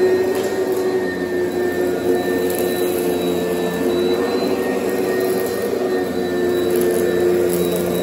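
Oreck XL Commercial upright vacuum cleaner running steadily as it is pushed back and forth over heavily soiled carpet, its pitch wavering slightly, with a few faint crackles of grit being sucked up.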